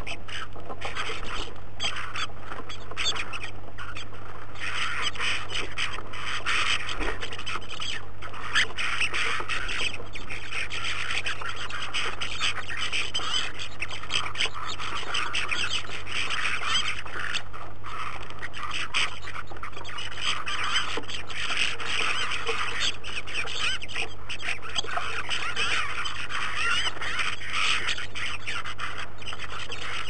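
A flock of bramblings chattering and calling continuously at a feeder, many birds at once in a dense, unbroken twitter.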